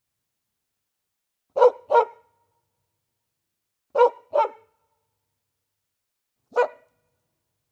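A dog barking: two quick barks, then two more a couple of seconds later, then a single bark near the end, with silence in between.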